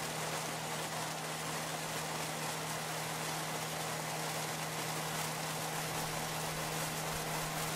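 Machinery running steadily: a low hum held under an even hiss.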